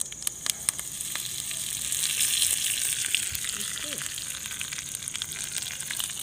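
Curry leaves sizzling in hot oil with mustard seeds in a small tempering ladle, the tadka seasoning for a chutney. A few sharp pops at first, then a steady sizzle that swells about two seconds in and slowly eases.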